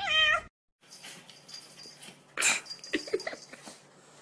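A cat's short meow, falling in pitch. After a brief gap, a cat hisses once sharply, then growls briefly and low.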